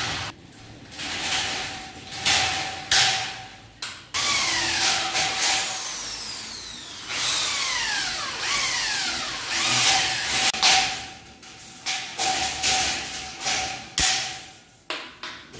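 A corded electric drill runs in several bursts while fastening steel ceiling furring channels. It whines steadily while running, and the motor pitch falls away each time the trigger is let go.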